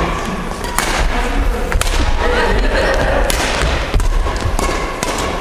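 Badminton rackets striking a shuttlecock in a rally: a series of sharp cracks, roughly one every half second to a second, over a steady low rumble.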